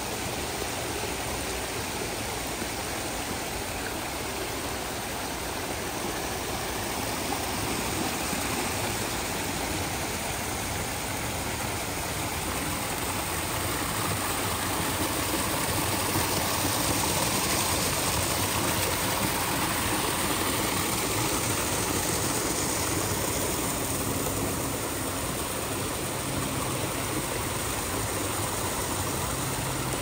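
Water from a backyard pond waterfall cascading over rocks into the pond: a steady rush that grows louder around the middle, then eases back.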